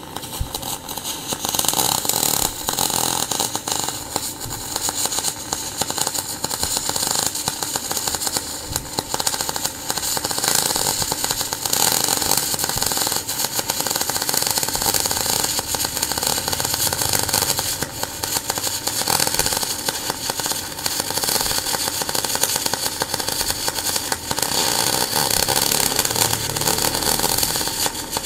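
MIG welding arc on aluminium, fed with aluminium wire from an NBC-288 multi-process inverter welder set to about 215 amps: a continuous crackling, sizzling hiss as one long bead is run. The arc runs smooth and even, a sign of a stable aluminium weld.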